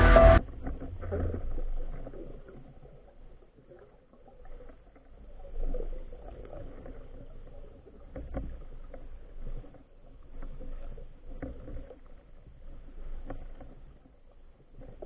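Muffled underwater sound picked up through an action camera's housing: water moving with soft, irregular knocks and swells as the diver swims.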